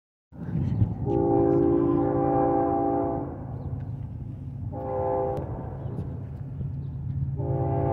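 Approaching diesel freight train's air horn, led by a BNSF GE ES44DC locomotive: one long blast, a short blast, then another long blast beginning near the end, over a steady low rumble.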